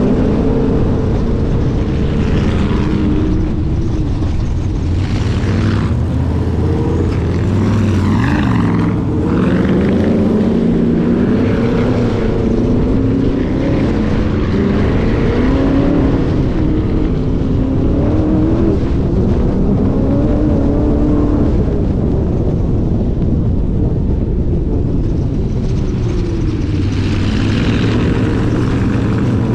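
Dune buggy engine running hard while driving over sand dunes, its pitch rising and falling again and again as the throttle opens and eases. A few brief rushes of higher noise break in over the engine.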